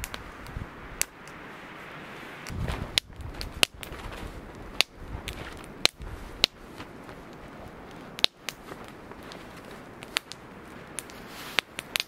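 Small wood campfire crackling, with irregular sharp pops about once a second over a steady hiss.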